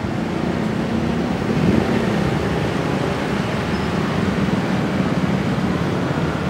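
Diesel locomotive engine running steadily as it slowly shunts a rake of passenger coaches. The low engine hum shifts in pitch briefly about two seconds in.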